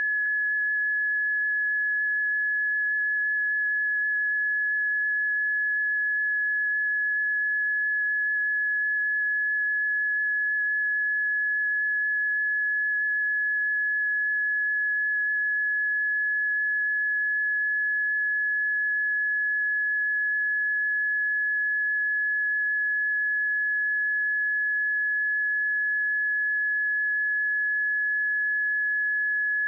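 The seismic monitor's early-warning tone: a single steady high-pitched pure tone holding one pitch throughout. On this alert a change of tone marks an earthquake or eruption, so the unchanging pitch signals that nothing new has been detected.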